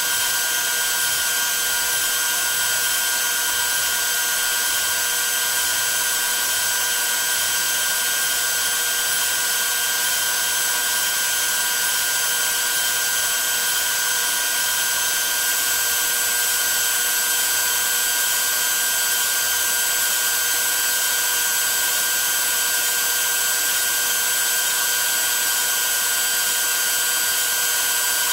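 DeWalt router spindle on a CNC machine running at high speed while a 1/8" two-flute upcut bit mills quarter-inch aluminum plate. A steady whine made of several high tones over a hiss, with no change in pace.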